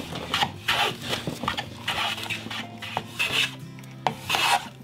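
Hand plane shaving the edge of a softwood board held in a bench vise: a quick run of short planing strokes, about two a second, over steady background music.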